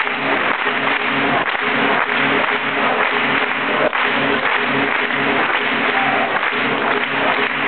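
Audience applause over Balkan folk dance music with a steady beat of about two pulses a second.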